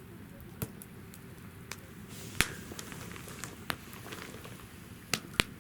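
Wood fire burning in a fire-pit stand, crackling: a handful of sharp pops, the loudest about two and a half seconds in and two close together near the end, over a low steady rumble of the flames.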